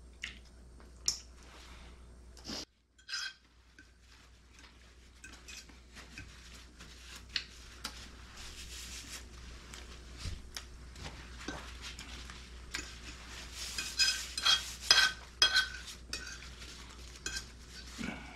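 Cutlery clinking and scraping against plates during a meal, with scattered taps and a busier run of sharp, ringing clinks near the end.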